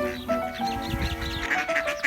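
Background music of held, steady notes, with short animal calls over it, thickest in the second half.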